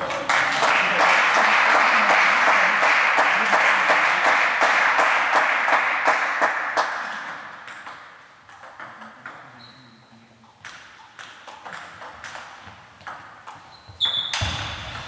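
Table tennis ball clicking off bats and table. For the first several seconds a loud, dense rush of clatter covers it and then fades away. A new run of sharp ball strikes begins near the end.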